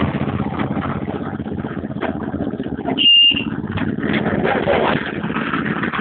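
Concrete mixer's small engine running steadily, with a brief high-pitched squeal about three seconds in.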